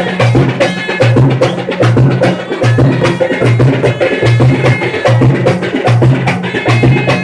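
Double-headed drums beaten with sticks in a fast, loud dance rhythm: rapid sharp stick strikes over a deep boom that recurs several times a second.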